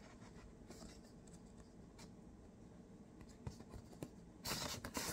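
Faint paper handling as a green paper envelope is worked open, with light scratches and ticks, then a louder paper rustle near the end as the card inside is drawn out.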